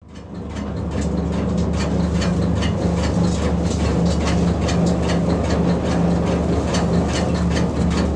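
Electric chaff cutter driven by a 2 HP motor, running with a steady low hum and a quick run of even clicks several times a second as its blade chops fodder.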